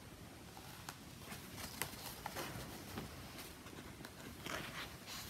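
Faint rustling and light clicks of a hardcover picture book being handled and lowered, its pages being turned.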